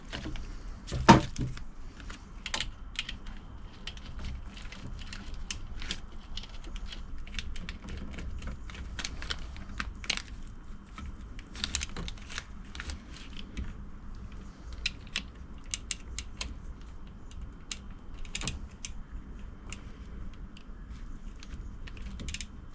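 Irregular small clicks and taps of hands working on a BMW E34 fuel pump assembly while its wiring is reconnected, with one louder knock about a second in.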